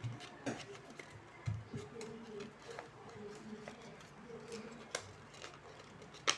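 Paper being handled and worked by hand: scattered light rustles and clicks, with one sharp click near the end.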